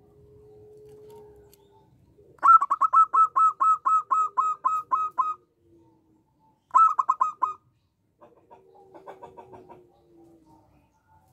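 Zebra dove (perkutut) singing: a fast run of about a dozen clipped cooing notes, about four a second, then a shorter run of about five notes, then fainter quick notes near the end.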